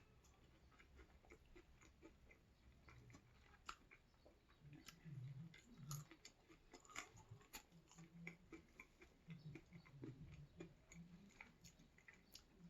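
Faint chewing of food: soft, scattered mouth clicks and smacks, a little denser from about five seconds in.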